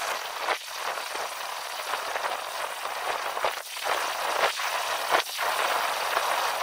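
Charcoal fire in a small brick forge hissing and crackling steadily, with four sharper snaps.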